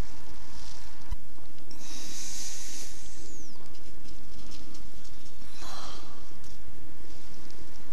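A person breathing close to the microphone: hissing breaths about a second long every few seconds, over a steady low rumble.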